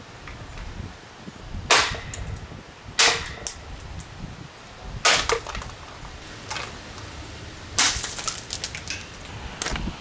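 Four sharp cracks, one every one to two and a half seconds, each trailed by a short rattle of lighter clicks: blows landing on a plastic Impress table fan as it is being smashed.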